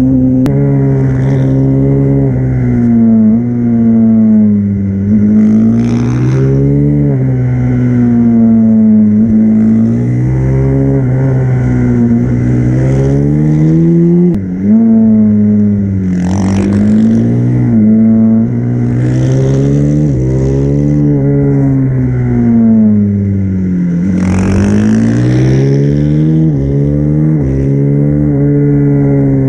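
Supermoto motorcycle engine at racing speed, heard from on the bike. It revs up hard, then falls in pitch under braking into corners, over and over, with abrupt pitch jumps at the gear changes.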